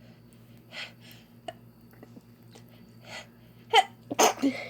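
Human sneezing: a few sharp breaths, then a quick run of loud sneezes in close succession about three and a half seconds in.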